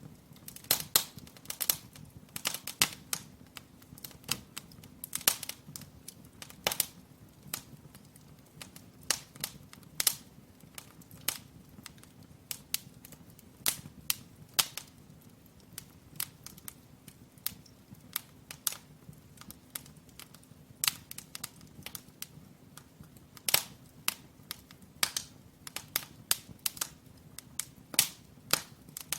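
Firewood burning in a brick fireplace: irregular sharp crackles and pops, several a second, some louder snaps standing out, over a faint low hum.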